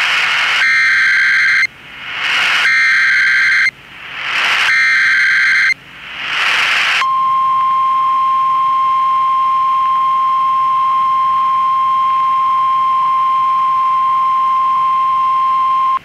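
NOAA Weather Radio Emergency Alert System alert: three short bursts of warbling two-tone SAME data header with hiss between them, then a single steady 1050 Hz weather radio alarm tone held for about nine seconds. These tones open a Civil Emergency Message broadcast.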